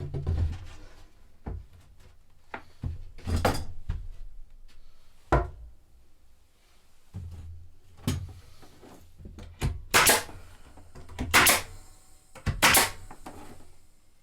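Irregular knocks, thuds and scrapes from handling building panels in a small room, with the loudest, sharpest knocks in the second half.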